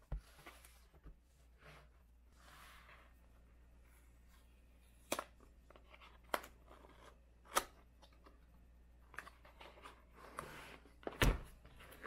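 Cardboard keyboard box being handled and its end flap worked open by hand: several sharp clicks and taps of the cardboard a second or more apart, the loudest near the end, with soft rustling between.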